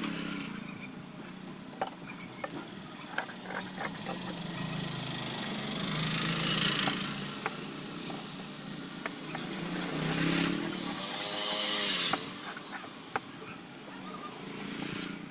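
Cloth rustling and a few light taps as pieces of blouse fabric are handled and smoothed on a tabletop, over a low steady hum that swells twice, about six and ten seconds in.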